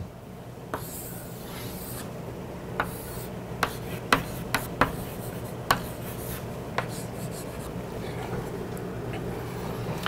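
Chalk writing on a blackboard: a scratchy drawing stroke in the first couple of seconds, then a run of sharp taps and short scrapes as letters and lines are chalked on.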